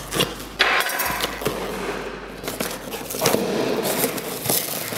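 Cardboard shipping box being cut and torn open by hand: tape and cardboard tearing and flaps scraping, in several uneven stretches with sharp clicks.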